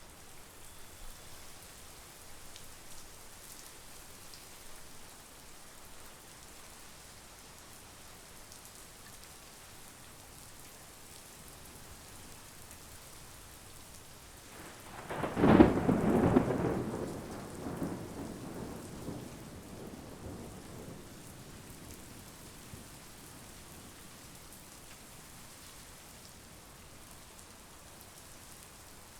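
Steady monsoon rain falling, with a single thunderclap about halfway through that rumbles away over several seconds.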